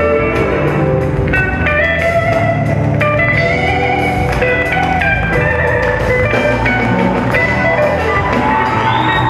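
Live band playing an instrumental passage. An electric guitar plays a lead line of quick notes with bent notes and ends on a long held note near the end, over bass guitar and drum kit.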